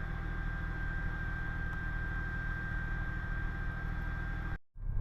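Chevy S-10 pickup's engine running steadily as the truck is driven: a low, even rumble with a thin steady high whine over it. It cuts off abruptly near the end.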